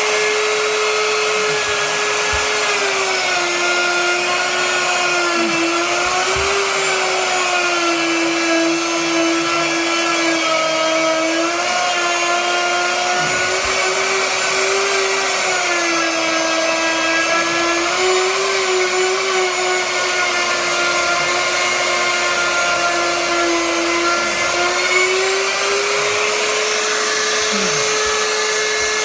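Handheld electric trim router running continuously with a high motor whine. About three seconds in the pitch drops and wavers as the bit bites into the wood edge under load, and a couple of seconds before the end it rises back to free-running speed as the router comes off the cut.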